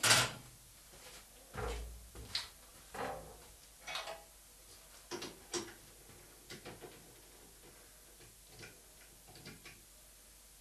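Metal clanks and clicks from a lathe's three-jaw chuck being worked by hand, a chuck key fitting into the chuck and the steel jaws knocking against the chuck body. A sharp clank comes right at the start, then scattered knocks about once a second that thin to light ticks in the second half.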